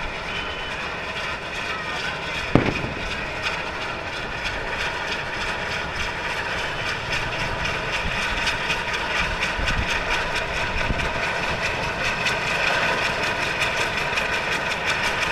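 A ground firework fountain spraying sparks with a steady rushing hiss that slowly grows louder, with one sharp crack a few seconds in.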